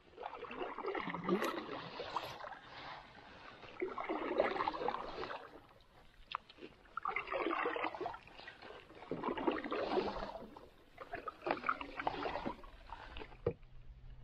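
Canoe paddle strokes in calm water, about five of them, one every two to three seconds, each a swirl and gurgle of water around the blade.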